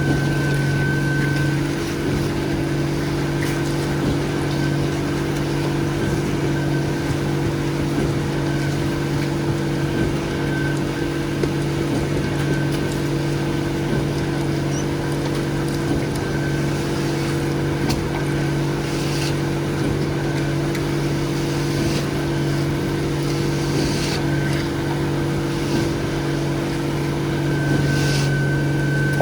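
Concrete truck's diesel engine running steadily at a constant speed, with a few short scraping noises in the last ten seconds.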